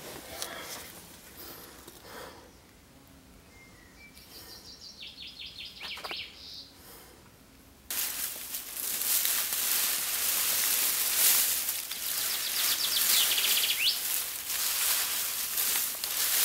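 Dry leaf litter rustling and crackling loudly as gloved hands scrape and gather it, starting suddenly about halfway through. Small birds chirp in the background, faintly in the quieter first half and again over the rustling near the end.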